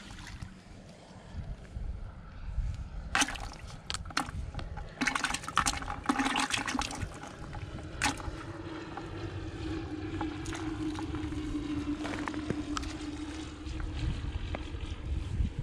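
Water trickling and dripping from a freshly pulled yabby net, with rustling and sharp clicks as yabbies are shaken out and handled on dry grass and dirt, busiest a few seconds in. A steady low hum comes in midway for about five seconds.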